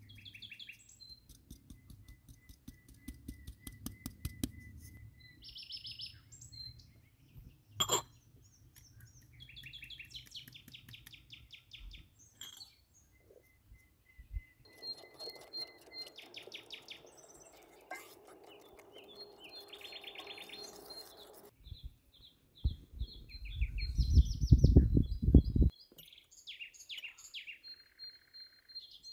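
Small songbirds chirping and trilling again and again, over light clinks and handling of kitchen bowls and utensils. About three-quarters of the way through, a few seconds of loud, low rapid knocking stand out above the rest.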